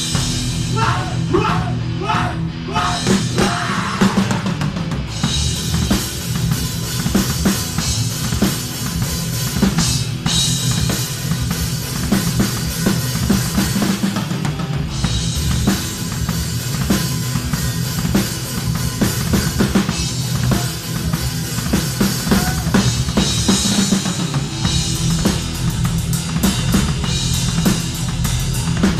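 Live metal band playing, the drum kit loudest: fast bass-drum and snare hits over sustained guitar and bass, with cymbals washing in from about five seconds in.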